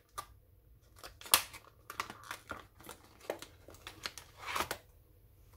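Stiff clear plastic blister packaging of a wireless mouse crackling and clicking as it is handled and pried open. There are scattered sharp clicks, the loudest a little over a second in.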